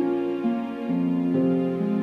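Slow, gentle background music: sustained keyboard notes moving from one to the next about every half second.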